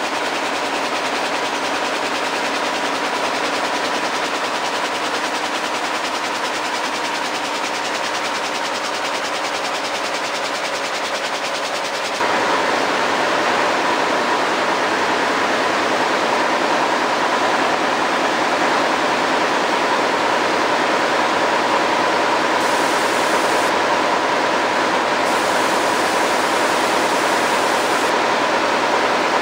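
Air-jet loom running at speed: a steady, dense mechanical clatter with a hiss of air and a constant high hum. It gets louder and brighter about twelve seconds in.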